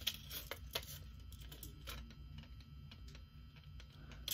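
Light clicks and ticks of a thin gold necklace chain and its clasp being worked in the fingers while it is fastened, a few in the first second, then fainter.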